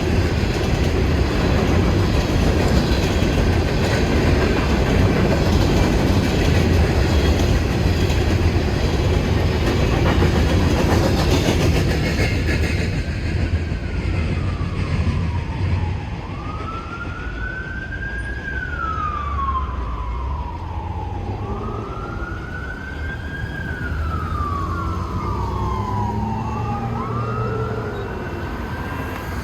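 Freight train passing with a heavy rumble of rail noise that eases off about halfway through. Over it, an emergency vehicle's siren starts up, wailing in slow repeated rises and falls.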